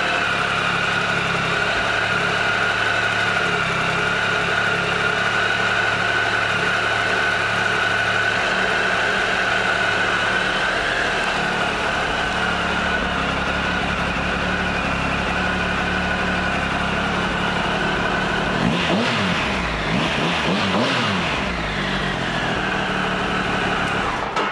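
Triumph Tiger 1200 Explorer's inline three-cylinder engine idling steadily, revved a few times with the pitch rising and falling about 19 to 22 seconds in, then switched off near the end.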